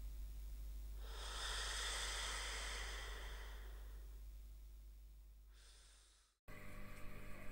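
A long, slow breath out, a sleepy sigh that swells for about two seconds and then slowly fades away over a low steady hum. Near the end, after a sudden cut, a different steady hum with faint ticks starts.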